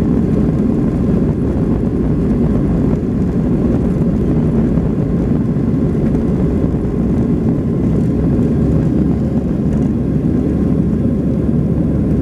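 Airliner's jet engines at takeoff thrust, heard from inside the cabin: a loud, steady low roar through the takeoff run and climb-out.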